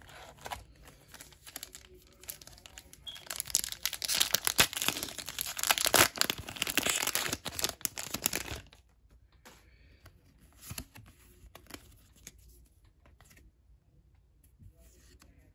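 Foil wrapper of a Pokémon booster pack being torn open and crinkled: a dense crackling that starts a few seconds in and lasts about five seconds, with faint rustles before and after.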